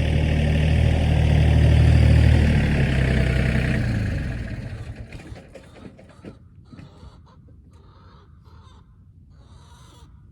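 An engine running with a steady low hum, dying away between about four and six seconds in. After that it is much quieter, with a few short calls of a bird.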